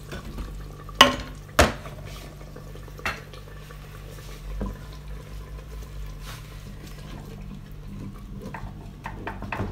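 Spoon stirring yogurt into masala in a clay cooking pot, knocking and scraping against the pot. Two sharp knocks come about a second in, and a run of light clicks near the end.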